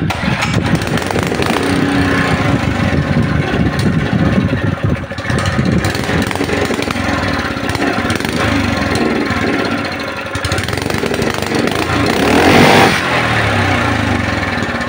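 Honda 3.5 hp small engine on a used irrigation water pump, running steadily just after starting on a light pull. About twelve seconds in it gets louder for roughly a second, then settles back.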